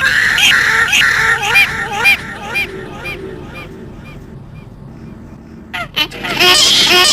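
Crying sound effect: short wailing cries repeating about three times a second, fading away over the first few seconds. A couple of sharp clicks come near six seconds in, then the loud crying starts up again near the end.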